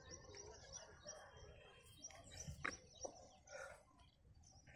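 Near silence with faint birds chirping: a string of short, repeated high chirps, and a couple of light clicks between two and a half and three seconds in.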